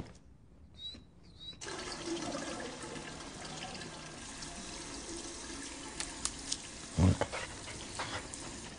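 Water running into a basin and down the drain, starting suddenly about a second and a half in and running steadily. A brief loud low knock comes about seven seconds in.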